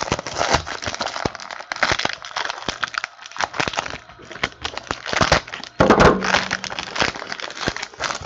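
Foil trading-card pack wrappers crinkling and tearing as packs are ripped open by hand, a run of irregular crackles with the loudest crinkle about six seconds in.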